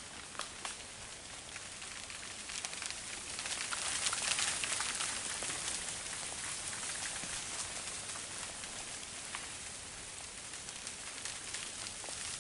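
Freezing rain falling on dry leaf litter and ice-coated branches: a dense hiss of many small ticks, growing louder a few seconds in and then easing.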